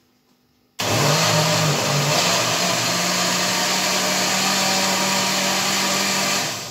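Jug blender's motor switched on about a second in, running at full speed as it purées chunks of mango and banana with water into a smoothie. Its hum wavers at first and then holds steady, and it winds down near the end.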